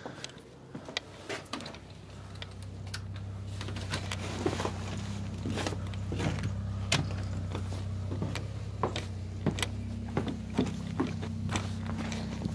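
Footsteps and the knocks and clicks of a door being opened, over a steady low drone that swells over the first few seconds and then holds. Near the end the steps go on over snow.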